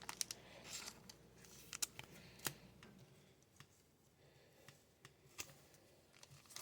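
Faint scattered clicks and light taps of trading cards being handled and slid against each other as a pack is flipped through, most of them in the first three seconds, then near silence.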